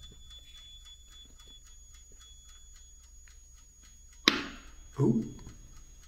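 Toaster oven ticking faintly and evenly, about four or five ticks a second, over a steady high whine. About four seconds in comes one sudden sharp pop or knock, followed by a brief vocal sound.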